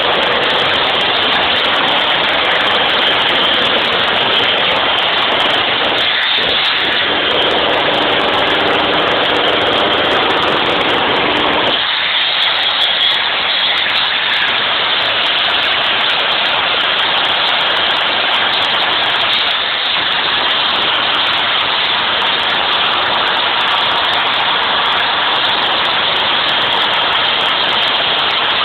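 Power hammer running continuously as it breaks rock, a loud steady machine noise; a lower hum in it drops away about twelve seconds in.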